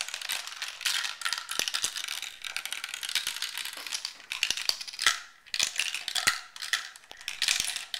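Marbles rattling and clicking as they roll and drop through a plastic marble run, a steady stream of small clacks with a few sharper clicks.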